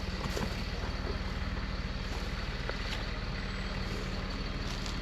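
Excavator's diesel engine running steadily at a low, even idle, with a few faint clicks.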